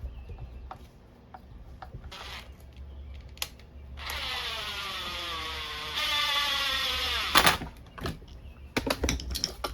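Cordless drill-driver whining for about three and a half seconds as it runs a bolt in during reassembly of a small trimmer engine, its pitch sinking steadily as the bolt tightens, stopping with a sharp knock. Light clicks and clatter of parts being handled before and after.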